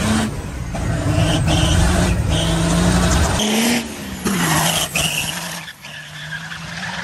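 A second-gen Dodge Ram's 12-valve Cummins diesel engine run hard at full throttle. About three and a half seconds in, the sound cuts to another run, where the engine note falls.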